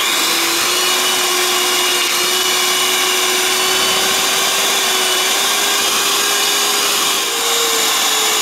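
Electric hand mixer running steadily, its beaters creaming soft butter in a stainless steel bowl: a loud, even motor whine that steps up slightly in pitch about seven seconds in.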